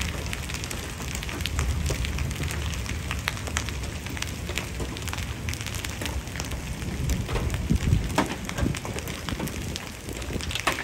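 Heavy rain and hail coming down on pavement: a steady hiss of rain with many sharp ticks of individual hailstones striking, over a low rumble of wind on the microphone.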